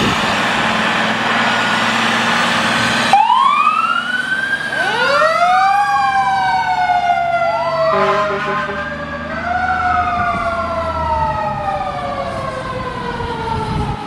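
Fire truck sirens wailing, several overlapping tones that each climb quickly and then slide down slowly, after about three seconds of steady loud engine and road noise.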